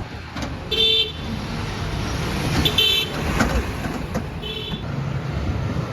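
A vehicle horn giving three short toots, about one second in, about three seconds in, and a fainter one near four and a half seconds, over the steady rumble of passing traffic.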